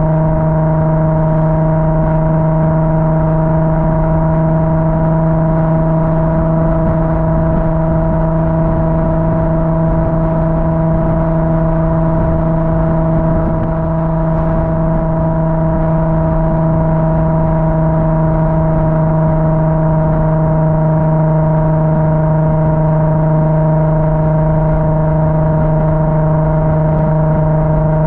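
Car engine droning at one steady, unchanging pitch with its overtones, held at a constant engine speed.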